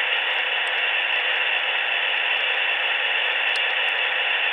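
Sound decoder of an HO-scale model diesel locomotive playing its idle with the radiator fans on through a tiny onboard speaker, heard as a steady hiss with no engine beat.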